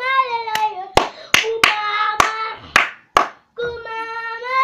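A young girl singing long held notes of a Lingala gospel song. About seven sharp hand claps come in the middle, while the singing breaks off.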